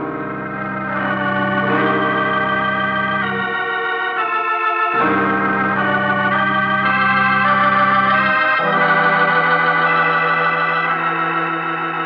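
Organ playing a dramatic musical bridge in sustained, held chords that change every few seconds. The low bass notes drop out briefly around four seconds in and return.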